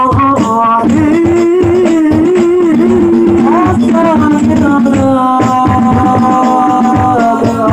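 Hadroh sholawat music: a singer holding long, high, ornamented notes over steady strokes of frame drums, one note held for about two seconds near the end.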